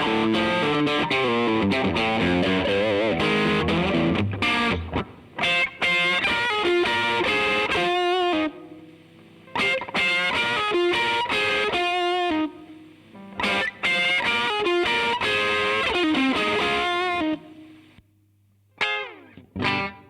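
Electric guitar played through a DemonFX YJM308 overdrive pedal, distorted: fast single-note runs at first, then short phrases with held notes and vibrato, broken by brief pauses. Two quick falling slides come near the end.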